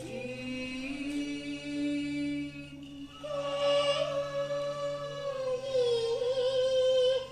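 Cantonese opera singing with accompanying music: a long note drawn out on a vowel with no words, then from about three seconds in a higher held note with a wavering vibrato.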